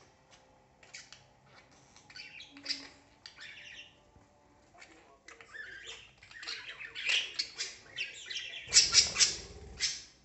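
Pet parakeets, a monk parakeet among them, squawking in short harsh calls, scattered at first, with the loudest run of squawks near the end.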